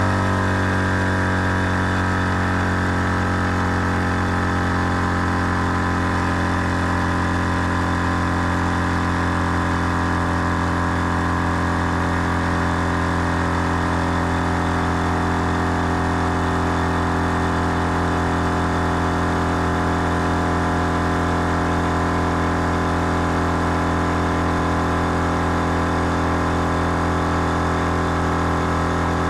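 Twin-head 12 V air compressor switching on and running steadily under load, pumping four tyres at once up from 0 psi. Its pitch dips briefly as it starts, then holds.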